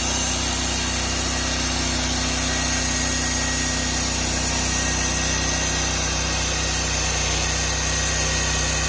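Norwood portable bandsaw mill running steadily under power, its engine holding a constant note while the blade saws a board off a log.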